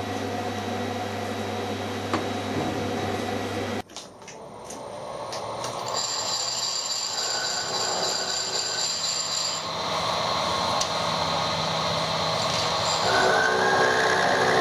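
A steady mechanical hum for the first few seconds, then after a sudden break a workshop machine runs up and keeps running, cutting metal with a steady noise and a few high whining tones, taking down weld built up on a broken cast pipe-cutter casting.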